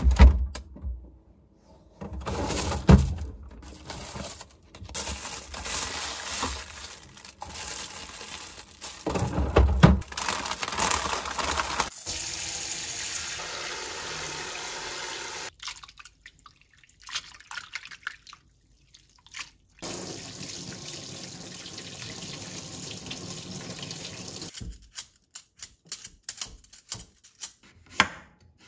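Kitchen prep sounds: first handling noises with a few heavy thumps, then a tap running hard into a steel colander in a stainless steel sink, rinsing a pack of greens, in two spells of several seconds. Near the end, a knife cutting a potato on a bamboo cutting board in a quick run of strikes.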